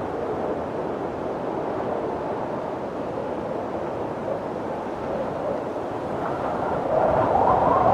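Snowstorm wind blowing steadily, swelling into a stronger gust near the end.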